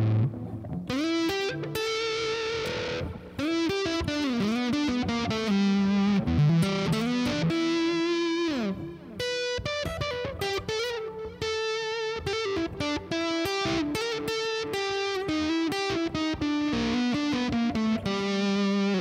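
Telecaster-style electric guitar through a heavily distorted high-gain tone, with its tone knob (500K pot, 0.047 µF cap) rolled well down, playing single-note lead lines with string bends and held, vibratoed notes. The darkened tone stays usable under the gain.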